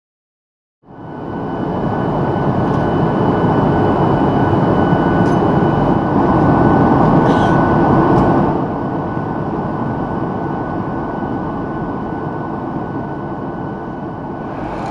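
Steady mechanical rumble with a faint high whine, starting about a second in and dropping slightly in level about eight seconds in.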